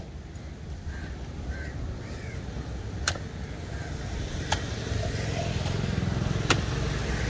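Knife blows on a wooden chopping block while tuna is cut up: a few sharp knocks, irregularly spaced about one and a half to two seconds apart. Under them runs a steady low rumble that grows a little louder in the second half.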